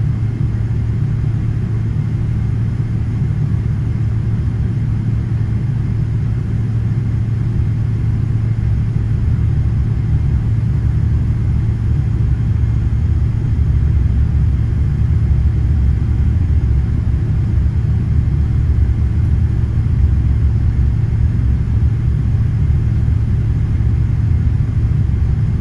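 Steady low rumble inside the cabin of a Boeing 777-300ER moving slowly on the ground, getting a little louder about halfway through.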